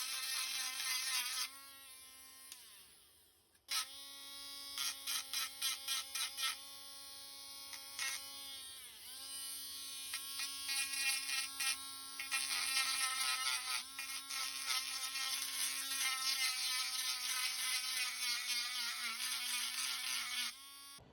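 Small high-speed electric rotary tool running with a steady buzzing whine, cutting plastic motorcycle fairings. It spins down about a second and a half in, restarts with a run of short on-off bursts, dips in pitch briefly as it bites, then runs steadily until it stops just before the end.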